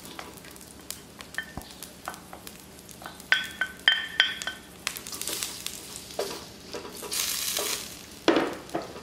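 Sliced shallots, garlic and turmeric sizzling in hot oil in a stainless steel wok, with a few ringing metal clinks against the wok about three to four seconds in. Near the end a wooden spatula stirs them, scraping the pan.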